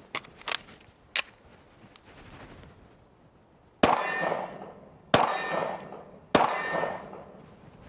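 Three 9mm Glock 45 pistol shots about 1.3 seconds apart, each followed by a long metallic ring that sounds like steel targets being hit. A few faint sharp pings come in the first second and a half.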